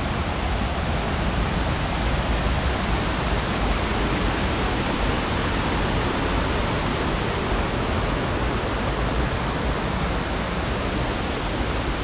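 Waterfall pouring: a steady, even rush of falling water.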